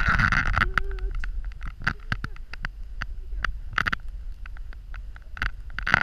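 Snow crunching and swishing in short irregular bursts, loudest in the first half-second, over a steady low wind rumble on the microphone.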